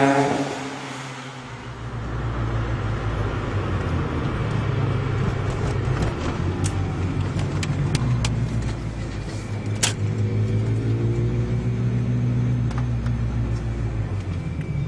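Volkswagen Golf Mk2 engine: first its sound fading as the car drives away, then heard from inside the cabin, running steadily on the move with a low drone. A few sharp clicks come midway, and the revs rise about ten seconds in.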